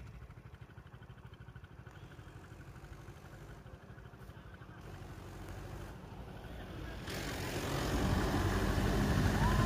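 Tractor engine running with a low, steady throb that grows louder over the last few seconds as the tractor draws near.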